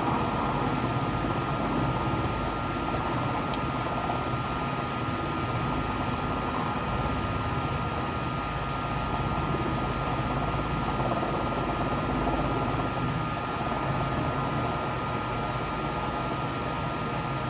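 Navy Seahawk helicopter's turbines and rotor running steadily as it hovers low and sets down on a carrier flight deck, with a constant high whine over the noise.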